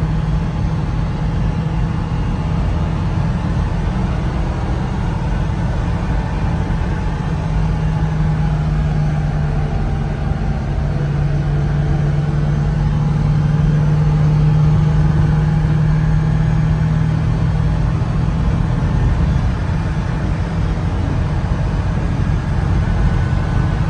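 1998 Suzuki Carry kei truck's small three-cylinder engine running at a steady cruise of about 75 km/h, heard from inside the cab as a constant drone with road and tyre noise. The drone swells a little through the middle and eases off near the end.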